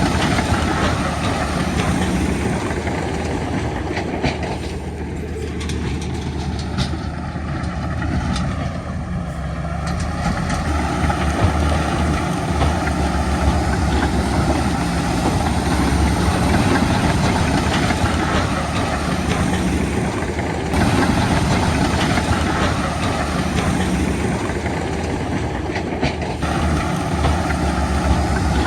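Heavy diesel earthmoving machinery running steadily. Its engine note drops about five seconds in and builds back up by about ten seconds, with some scattered clanks.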